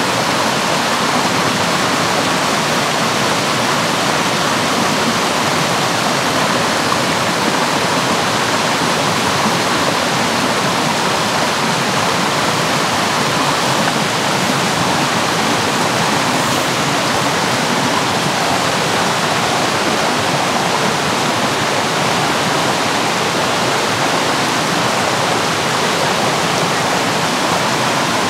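Steady, loud rush of flowing water, unbroken and even throughout.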